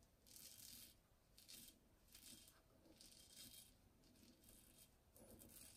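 Faint rasping scrapes of a razor-sharp Hults Bruk axe edge cutting through lathered beard stubble: about seven short strokes, each under half a second.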